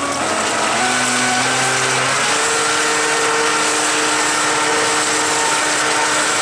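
Electric jet-surfboard jet drive running at high power in a water test tub: a loud hiss of churned, frothing water with a motor whine that steps up in pitch twice in the first couple of seconds, then holds steady.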